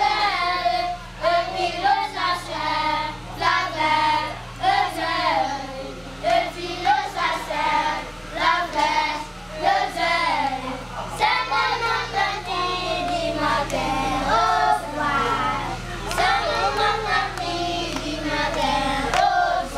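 A group of children singing a song together, their voices rising and falling without a break.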